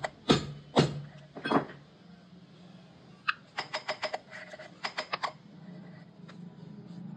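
Engine valve being lapped into its seat in a cylinder head, its head spun back and forth with a lapping stick: a few sharp metal knocks about half a second apart in the first second and a half, then quick runs of clicking and rattling as the valve works against the seat. A steady low hum runs underneath.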